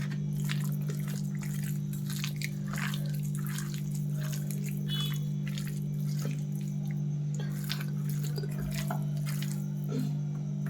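Wet squishing and clicking of raw chicken being mixed in a thick marinade of flour, spices and food colour, in short irregular strokes over a steady electrical hum.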